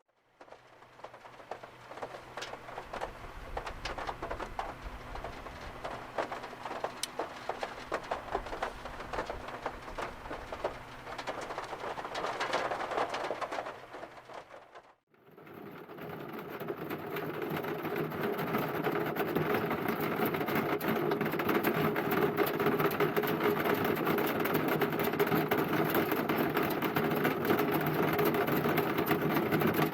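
Rain pattering on the body of a kei car in a typhoon, a dense crackle of drops, for about the first half. After a brief break it gives way to a louder, steady droning hum, like an engine idling.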